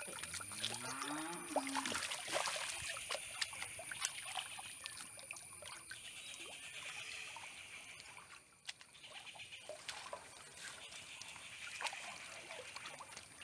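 Water splashing and trickling as large giant gouramis flap and thrash in shallow water held in a net, with many small irregular splashes.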